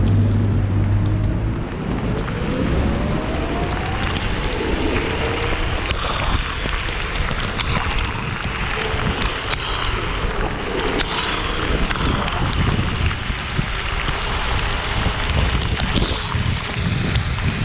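Wind buffeting the microphone and tyres hissing over a rain-soaked road as an electric scooter is ridden through the rain. About a second in, a faint whine rises in pitch over the next few seconds.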